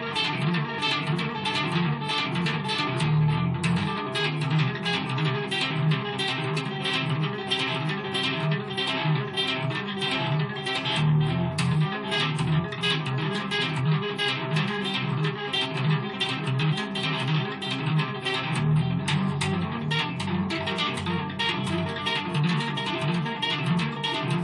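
Electric guitar played solo in a fast, unbroken run of notes.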